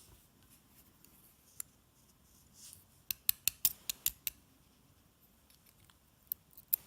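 Small metallic clicks and taps from tweezers and tiny lock pins and springs being handled while a five-pin DOM lock is taken apart: a single click, then a quick run of about seven, and two more near the end.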